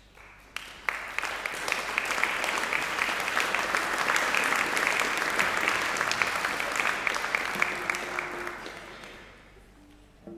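Audience applauding: many hands clapping, starting about half a second in, swelling, then dying away near the end.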